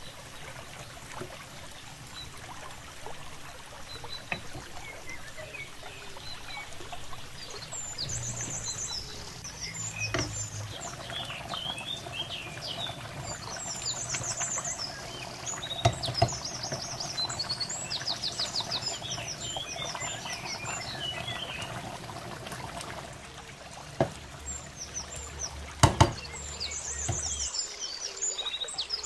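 Pot of rice and stock at a rolling boil, bubbling and sloshing as it is stirred with a wooden spoon. A few sharp knocks come in the second half. Birds chirp in the background.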